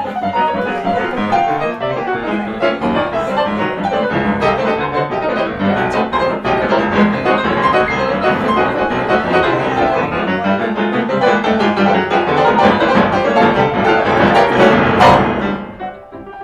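Two grand pianos playing jazz together, dense overlapping runs and chords building to a loud peak about fifteen seconds in, then dropping off suddenly.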